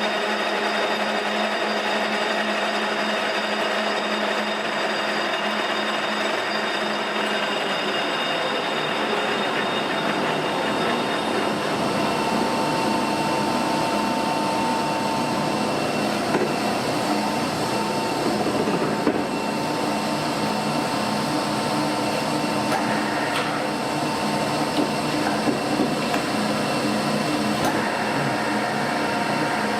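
Leblond gap bed lathe running under power: a steady machine whine of several even tones, which shift a little about twelve seconds in, with a few light knocks later.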